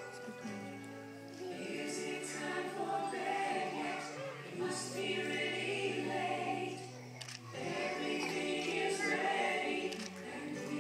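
A song sung by a choir of voices over sustained instrumental backing, with a brief lull about seven and a half seconds in.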